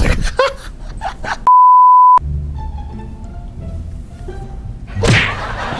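Censor bleep: a single steady high beep of under a second, about a second and a half in, with all other sound cut out beneath it. Light background music plays around it.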